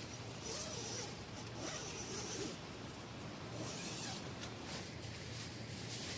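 A zipper pulled in three short strokes.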